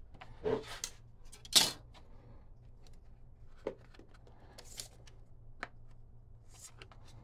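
Workshop handling sounds from hand woodworking: a few scattered knocks and scrapes of tools and wood. The loudest is a short, sharp scrape about a second and a half in.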